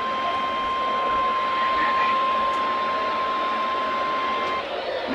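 NOAA Weather Radio 1050 Hz warning alarm tone, a single steady pitch over radio static, cutting off a little before the end. The tone is the alert that a warning message is about to be read.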